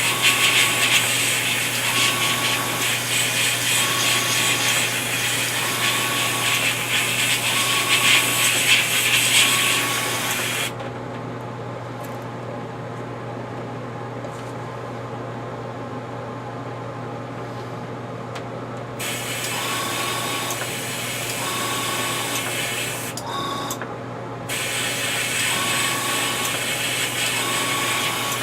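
Airbrush spraying paint, a steady hiss of air that runs for about ten seconds, stops, starts again about eight seconds later, and pauses briefly once more near the end as the trigger is released and pressed. A steady low hum runs underneath.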